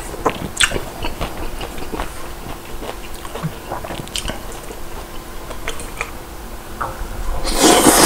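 Close mouth sounds of eating Neoguri instant ramen: chewing with scattered wet clicks and smacks, then a loud slurp of thick noodles near the end.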